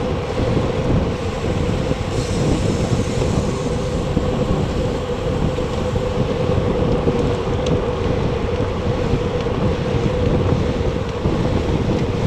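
Wind rushing over the microphone of a Garmin VIRB action camera mounted on a moving recumbent bicycle, with a steady hum underneath.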